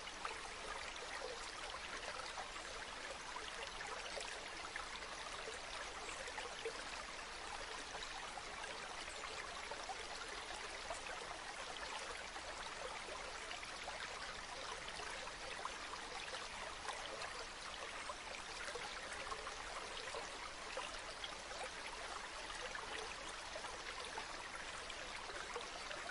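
Bamboo water fountain trickling and splashing steadily, with small irregular drips and splashes in the flow.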